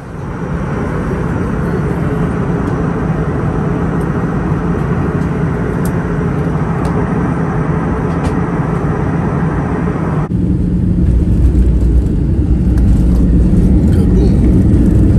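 Steady cabin noise of a jet airliner in flight, a loud rush of air with a low engine hum. About ten seconds in it changes abruptly to a deeper, louder rumble with less hiss.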